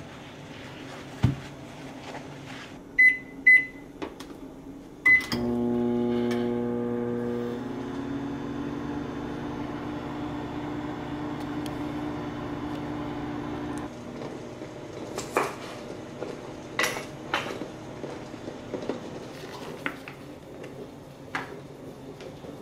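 Panasonic microwave oven: a knock, three short keypad beeps, then the oven running with a steady hum for about eight seconds before it stops abruptly. Scattered light clicks and knocks of kitchen items being handled follow.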